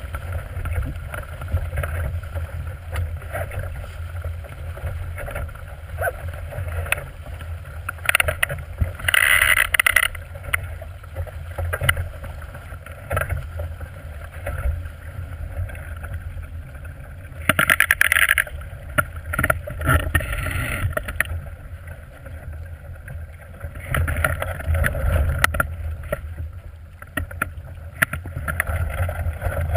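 Wind buffeting the microphone over water rushing and splashing along the hull of a small plywood sailboat driving through chop, with several louder bursts of spray.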